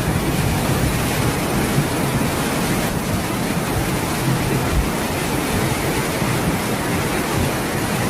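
Fast-flowing floodwater rushing in a steady, even roar.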